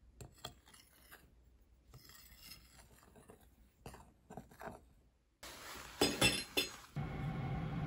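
Metal spoon stirring ground spices in a glass bowl, with light clinks and scrapes against the glass. About five seconds in it gets louder: a few sharp clinks of the spoon, then a steady rasping scrape through the powder.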